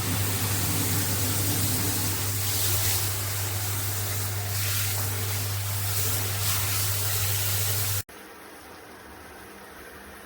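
Handheld shower head spraying water in a steady hiss, with a steady low hum underneath; both cut off abruptly about eight seconds in, leaving a much quieter background.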